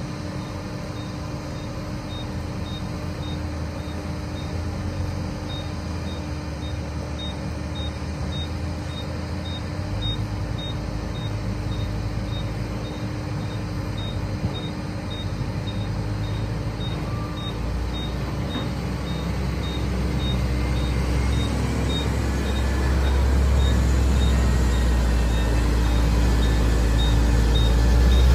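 Heavy diesel engine running with a steady low rumble that builds louder over the last third. A faint high beep repeats about twice a second alongside it.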